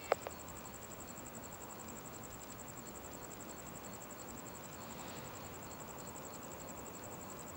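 Faint steady hiss of a radio or intercom audio feed between transmissions, with a thin, high-pitched tone that pulses evenly throughout.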